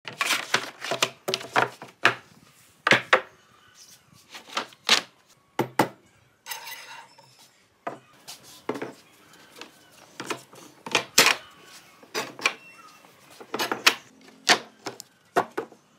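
Pine boards and steel pipe clamps being set out on a wooden workbench: irregular knocks and clatters of wood on wood and metal on wood, with a brief scraping sound about six and a half seconds in.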